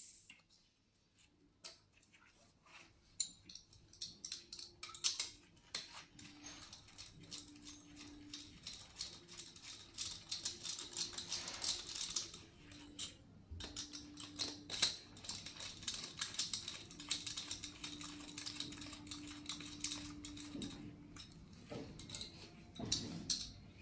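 Small, quick clicks and taps of gloved hands handling the compression tester's hose fitting and parts on the cylinder head of a bare engine, as the gauge is moved from one cylinder to the next. A faint hum comes and goes behind it.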